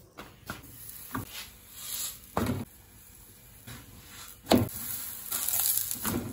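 Flatbread frying on a hot iron tawa: a faint sizzle that grows louder near the end, with two sharp knocks of a metal spatula against the pan.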